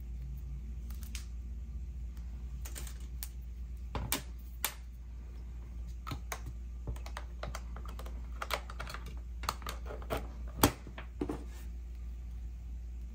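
Scattered small plastic clicks and taps as USB cable plugs are handled and pushed into the side ports of a portable jump starter. The loudest click comes about ten and a half seconds in.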